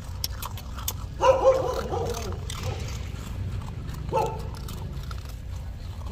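Puppies whining as they scramble for biscuits through an iron grate, with one longer cry about a second in and a shorter one about four seconds in. Short, sharp clicks come in between.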